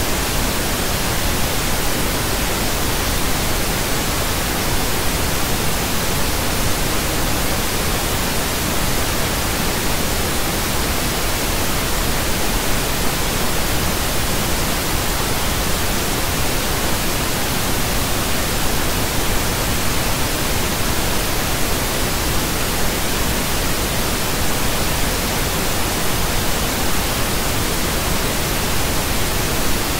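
Pink noise: a steady, even hiss spread across the whole range of pitch, unchanging throughout.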